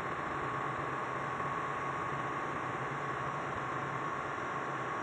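Steady machinery noise of a ship's engine room: an even hiss with a low hum and a steady high tone, unchanging throughout.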